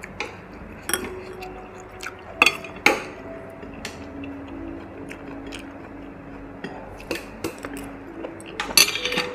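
Metal tongs and utensils clinking and scraping against a tabletop grill plate and soup pot: sharp clinks about a second in and twice between two and three seconds, a few more near the end, over a steady low hiss.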